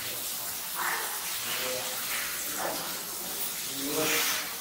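Steady hiss with three short louder wet rushes, about a second, two and a half and four seconds in, as fat and membrane are pulled from a hanging goat carcass by hand.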